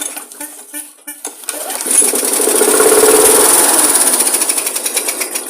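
Masport mower's single-cylinder Briggs & Stratton engine being pull-started on carb spray. About two seconds in it catches and runs loud and rough, then fades toward the end.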